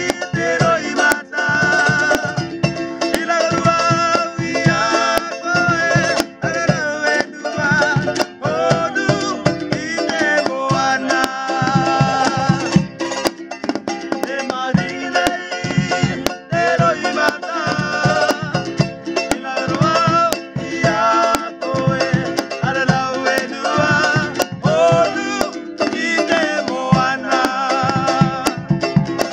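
Cook Islands song medley: men singing together, with two strummed ukuleles and a drum beaten in a steady rhythm. The singing has long, wavering held notes.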